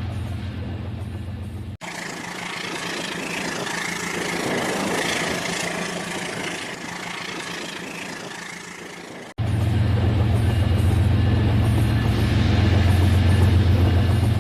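Battery-powered toy train running on its track: a steady motor hum with a fast rattle of the wheels. It cuts off abruptly about two seconds in and again about nine seconds in, and the middle stretch is noisier, with less of the low hum.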